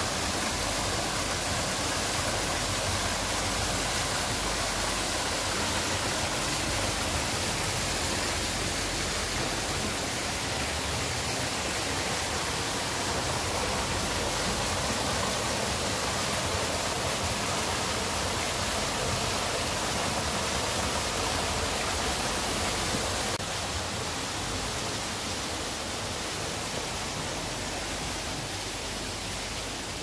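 Several thin streams of water falling from a planted rock wall into a pool: a steady, even rush of splashing water. It turns slightly quieter about three-quarters of the way through.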